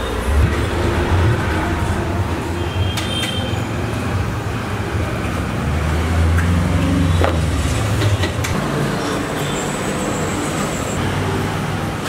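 A steady low rumble of road traffic, with a wooden rolling pin being worked over a sheet of dough on a stone counter and a few faint clicks.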